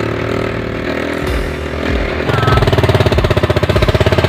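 Motorcycle engine running on a rough dirt track. About two seconds in, the sound turns louder, with a fast, choppy pulsing.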